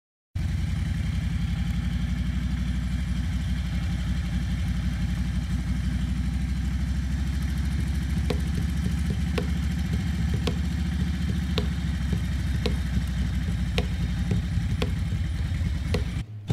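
Motorcycle engine running steadily at low speed, heard from the rider's seat behind the windshield. From about halfway through, light clicks come about once a second as the tyres cross the seams of a concrete path. The engine sound cuts off just before the end.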